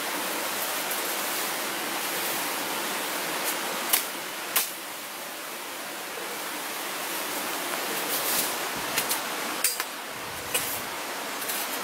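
Steady rush of a rocky jungle stream. A few sharp crackles of footsteps through leafy undergrowth stand out, twice about four seconds in and several more near the end.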